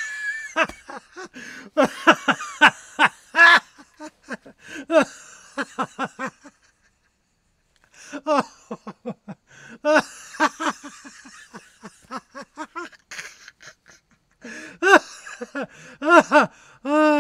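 People laughing hard in repeated bursts of short, quick syllables, ending in one long, falling cry.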